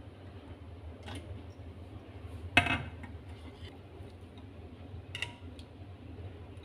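Kitchenware being handled: a blender jug's lid taken off and a ceramic bowl picked up, giving a few light clicks and one loud clatter about two and a half seconds in, over a steady low hum.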